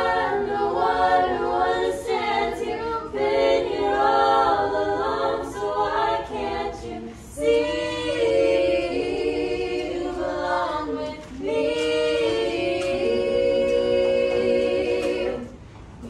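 A small group of voices singing a cappella in harmony, without instruments. The first half has moving notes; from about halfway through they hold long chords, and the last chord stops near the end.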